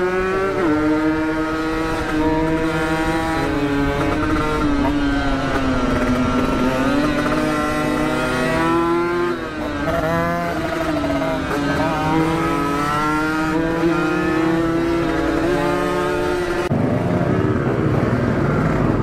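Two-stroke motorcycle engine through an aftermarket Aitech racing exhaust, ridden hard with its note rising and falling as the throttle is worked. Near the end the sound changes abruptly and the note climbs sharply under acceleration.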